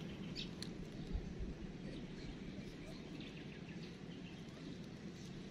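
Quiet outdoor ambience: a low steady rush with faint scattered chirps, and two light clicks about half a second in.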